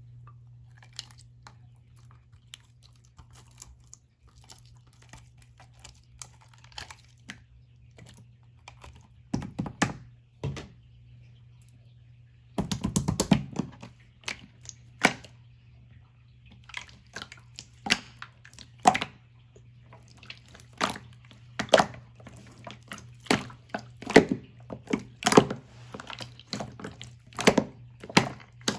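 Large clear slime squished and pressed by hand, giving irregular sharp pops and clicks. There is a dense run of crackling about thirteen seconds in, and the pops come more often in the later part.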